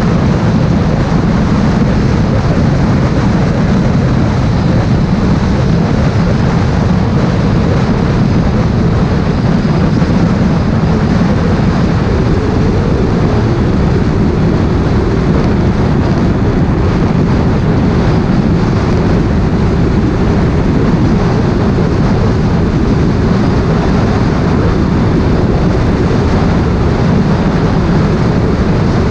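Steady wind rush and engine noise from a motorcycle ridden at highway speed.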